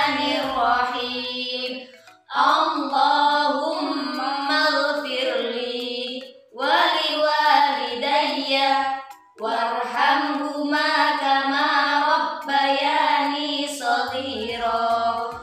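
Women's voices chanting the Arabic prayer for parents together to a sung melody, in four phrases with short breaks between them.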